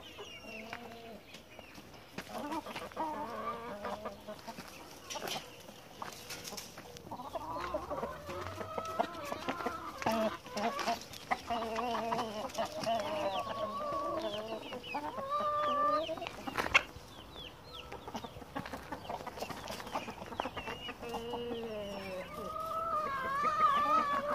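A flock of backyard hens and a rooster clucking and calling, with many short calls overlapping throughout. A single sharp knock about seventeen seconds in.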